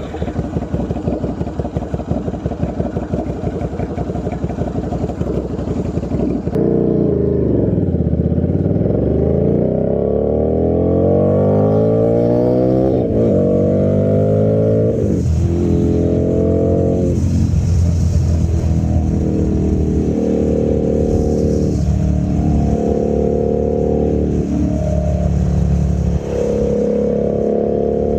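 Buell 1125R's V-twin through a very loud custom exhaust: a lumpy, pulsing beat at low revs, then from about six seconds in the revs swing down and up and climb in several rising runs, each broken by a short dip as through gear changes.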